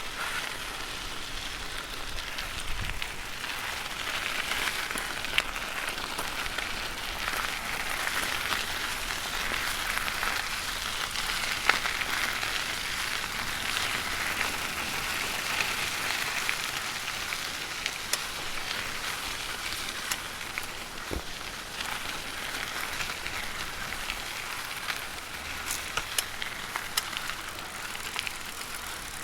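Bicycle tyres rolling over gravel and small stones: a steady crunching hiss with scattered sharp ticks of stones popping under the tyres.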